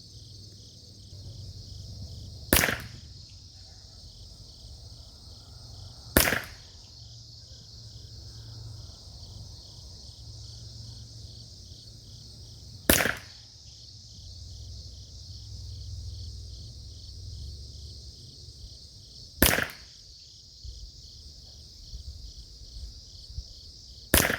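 Five single shots from a factory Ruger 10/22 .22 LR rifle firing SK Rifle Match ammunition, spaced several seconds apart, each a sharp crack. A steady chorus of insects runs under them.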